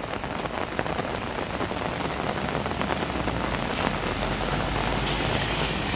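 Heavy rain falling steadily on a paved road. About halfway through, a low rumble from a pickup truck driving up the wet road joins it and grows a little louder.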